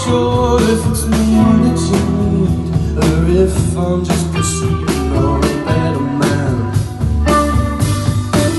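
Live band music: a song played with guitar and a steady drum beat, with some singing.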